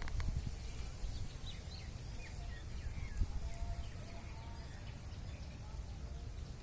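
Faint scattered bird chirps and calls over a steady low rumble.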